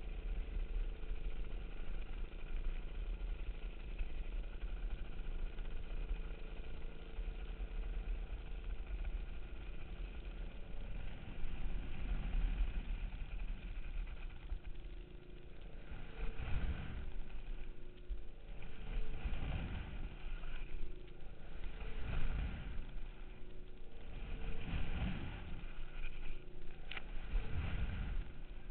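Tow boat engine running steadily under way. From about a third of the way in, rushing surges of noise come back every two to three seconds.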